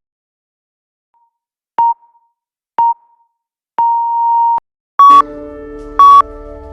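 Workout interval timer beeping a countdown: two short beeps and a longer beep at one pitch, a second apart, then two short higher beeps a second apart. Soft background music comes in with the first higher beep.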